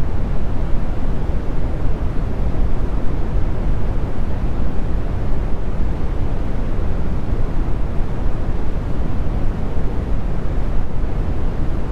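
Brown noise: a steady, loud, low rumble of even noise with most of its weight in the bass and little treble, unchanging throughout.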